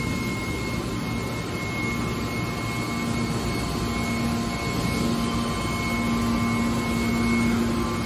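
Steady mechanical drone of a hydraulic scrap metal baler's power unit running, with a held high whine and a lower hum that grows stronger about three seconds in.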